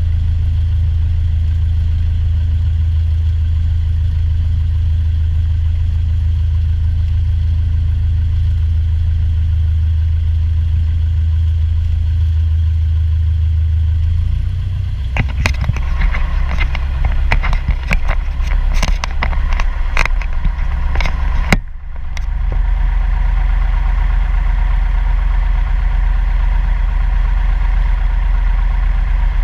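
Light aircraft's piston engine and propeller running steadily at taxi power, heard close up at the cowling. About halfway the engine note drops, and a few seconds of sharp clicks and rattles follow before the engine settles back to a steady drone.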